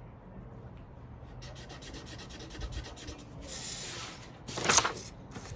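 Felt-tip marker scribbling quickly back and forth on paper. The sheet of paper then rustles and slides across a wooden table, loudest a little before the end.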